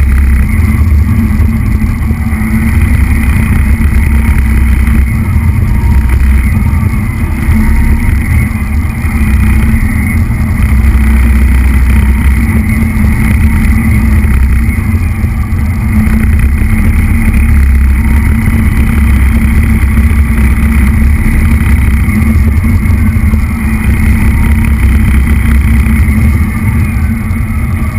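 Radio-controlled truck driving over a tiled floor, heard from a camera mounted on it: a loud, steady rumble of its motor, gears and wheels with a higher whine on top, easing briefly now and then.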